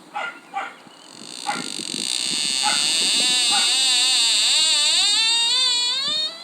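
An eerie warbling tone that wobbles rapidly up and down in pitch and slowly drifts lower, swelling in over a hiss and cutting off suddenly. A few short chirps come before it.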